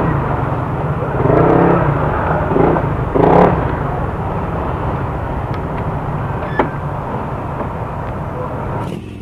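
Steady vehicle engine and street noise, with people talking in the background during the first few seconds and a single sharp click about two-thirds of the way through.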